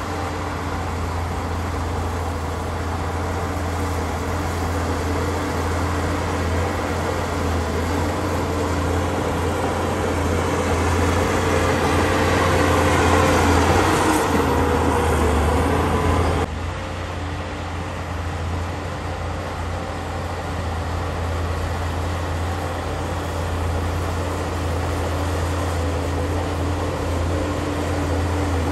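Shantui crawler bulldozer's diesel engine running steadily as the machine pushes earth. It grows louder toward the middle, drops suddenly about two-thirds of the way through, then runs on evenly.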